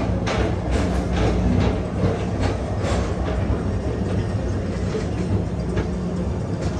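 A Tomorrowland Transit Authority PeopleMover car riding along its elevated track: a steady low hum and rumble with faint, irregular clicks.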